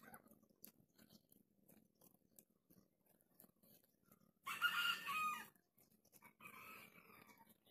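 A rooster crowing once, loud and clear, about halfway through, followed by a shorter, fainter call a second later.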